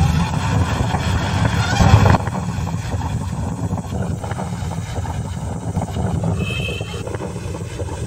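Steady, loud low rumble of a car running, with wind buffeting the phone microphone. A brief high tone sounds about six and a half seconds in.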